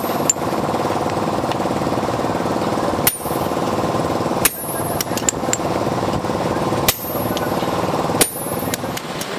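Hammer strikes on a steel punch, driving handle holes through the hot tang of a forged knife blank on an anvil. There are several sharp blows a second or more apart, over a steady machine drone.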